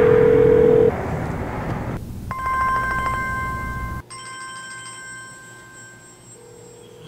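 A short steady beep over a noisy background, then a mobile phone ringing with an incoming call, its ringtone a pattern of steady high tones. About four seconds in the ringtone drops in level and sounds thinner.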